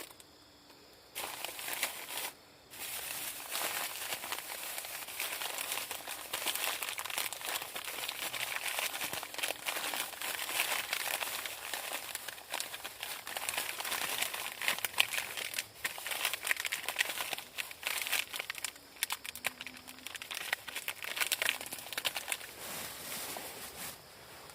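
Crinkly material rustling and crackling close to the microphone in a dense, uneven stream. It starts about a second in, pauses briefly, and eases off near the end.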